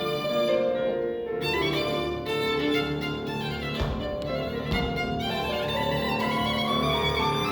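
Violin playing a passage of changing bowed notes, with two brief knocks about a second apart near the middle.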